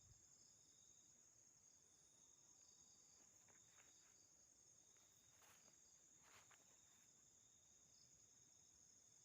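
Faint, steady chirring of night crickets, with a few soft rustles partway through.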